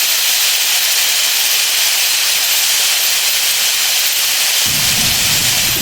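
A steady, loud hiss of spraying gas, with a low rumble joining it near the end.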